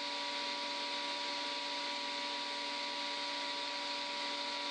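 Steady background hiss with a few steady hum tones underneath, unchanging throughout; no distinct events.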